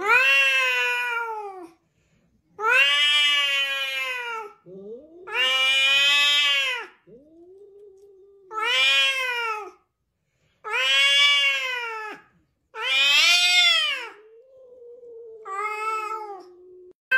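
Two cats in a face-to-face standoff, yowling in about seven long drawn-out calls, each rising and then falling in pitch, with a low moaning tone between calls.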